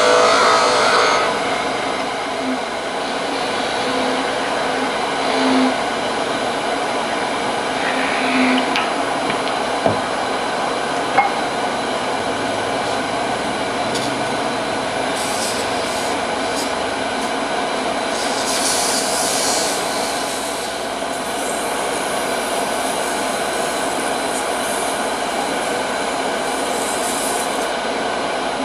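Wood lathe running steadily with a hum of motor tones while a walnut handle spins in its chuck, louder in the first second. Several brief high hissing bursts come in the second half as the spinning wood is worked, with a couple of sharp clicks before them.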